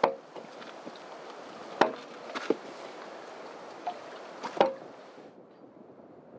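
Rowboat oars knocking in their wooden oarlocks, five sharp clunks a second or two apart over a steady hiss that stops suddenly about five seconds in.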